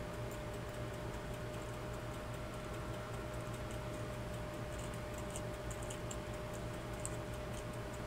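Faint ticking and small clicks from a Waltham pocket watch as its crown is worked by hand on the stem, over a steady low hum.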